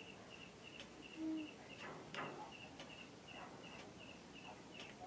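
An insect chirping steadily at a high pitch, a little over two short chirps a second. About a second in comes one brief, low hoot-like call, and a few faint clicks are scattered through.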